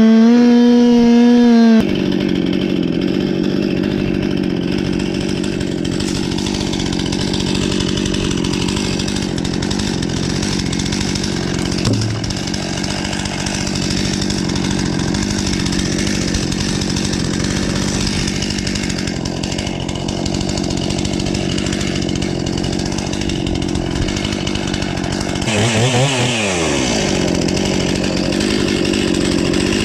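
Chainsaw revving high, then dropping in pitch as it bites into wood and running steadily under load through a long cut, with the noise of the chain chewing through the log. Near the end the engine speed dips and recovers, and it climbs again as the load comes off.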